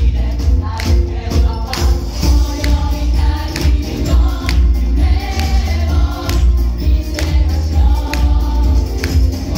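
A large mixed choir singing an upbeat song, amplified through microphones, over a steady beat and heavy bass.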